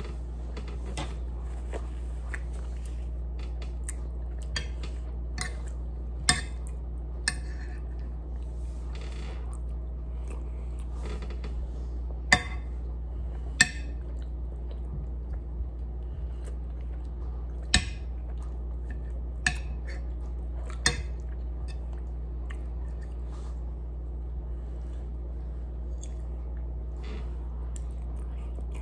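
A metal spoon and fork clink and scrape against a plate, with about seven sharp clinks spread through. Quiet chewing and mouth sounds of eating soft chicken and rice fill the gaps over a steady low hum.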